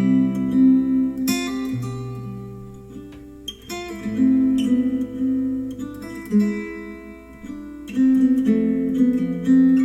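Plucked acoustic guitar music played back through Adam Audio A3X powered studio monitors, with clear sustained notes following one another.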